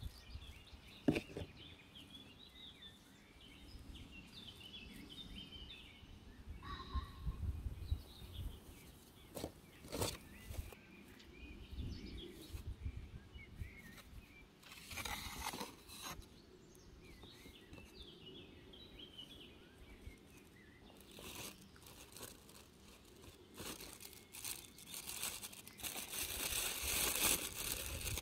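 Small birds chirp in the background over scattered rustles and crunches of hands working potting soil and plastic plant pots. Near the end comes louder crinkling of the plastic bag that holds a dahlia tuber.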